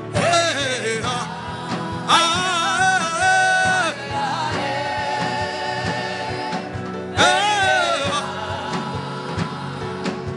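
Gospel worship song: a voice sings three long, bending phrases over sustained keyboard chords, with a light steady beat underneath.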